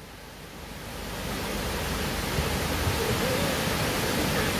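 Steady rushing water, like a stream or small waterfall, fading in over the first couple of seconds.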